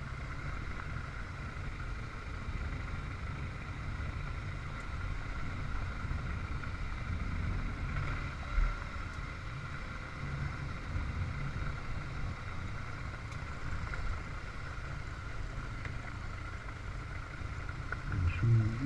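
Motorcycle riding at steady speed: a constant engine and road rumble with wind noise, unchanging throughout, and a single brief thump about halfway through.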